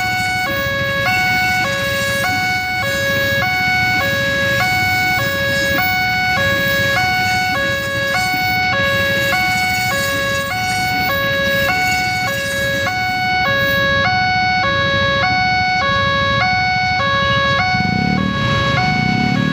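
Level crossing warning siren sounding continuously, alternating evenly between two pitches, high and low, under a second each, over a low rumble. A louder low sound swells in near the end.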